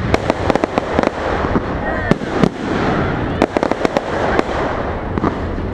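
Fireworks display: an irregular rapid string of sharp cracks and bangs over a continuous hiss, as aerial shells burst into crackling white and pink stars.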